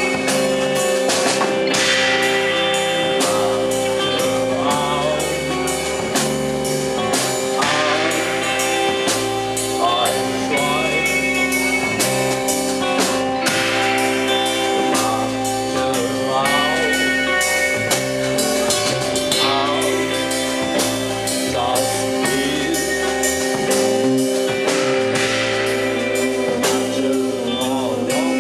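Live psychedelic rock band playing: electric guitars and bass holding a sustained droning chord over a steady drum-kit beat, with a wavering vocal line on top.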